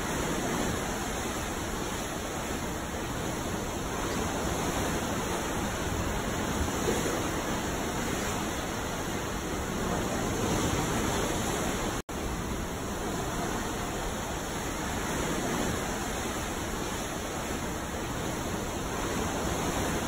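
Ocean waves washing in a steady hiss, swelling and easing every few seconds, with no single breaking wave standing out. The sound cuts out for an instant about twelve seconds in.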